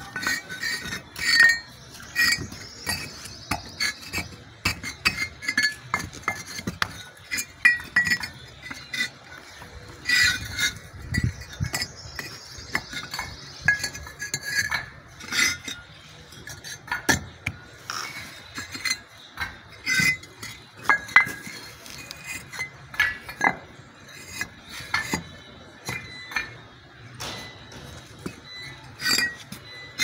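Fired clay bricks clinking and knocking against each other as they are set by hand into a herringbone brick floor: irregular, sharp clinks, several a second at times.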